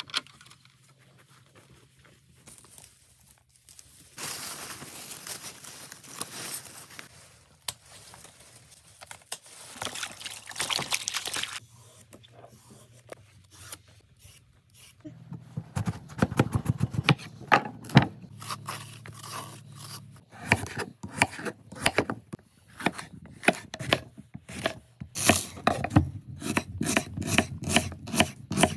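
Zucchini being prepared by hand. First comes a stretch of rustling, scraping noise. Then a vegetable peeler scrapes the skin off a zucchini in repeated strokes, and near the end a knife cuts through the zucchini flesh in a quick run of strokes.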